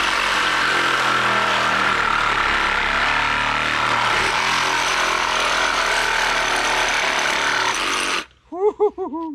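DeWalt 20-volt cordless reciprocating saw with a Diablo carbide demolition blade cutting through a steel bolt embedded in a wooden deck board. It runs steadily for about eight seconds, then stops abruptly.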